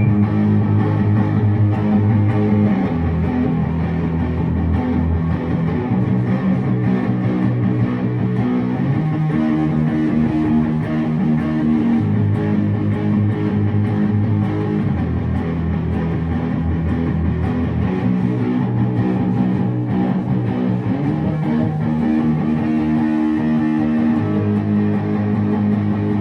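Guitar playing a repeating chord progression, with held chords changing every few seconds.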